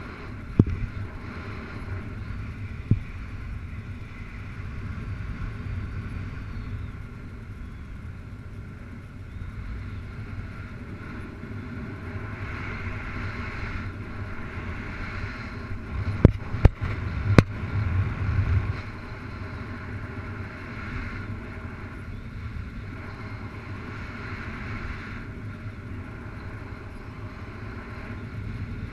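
Wind rushing over the microphone of a paraglider pilot's onboard camera in flight: a steady rumble with a hiss that swells and fades. A few sharp clicks break through, three close together a little past halfway.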